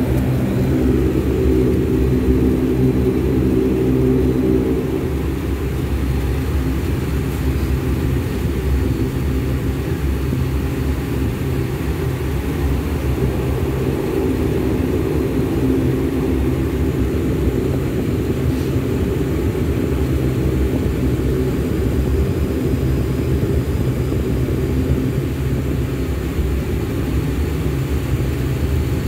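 Airplane engines running steadily, heard from inside the passenger cabin while the plane taxis: a low hum with several steady droning tones, a little louder for the first few seconds.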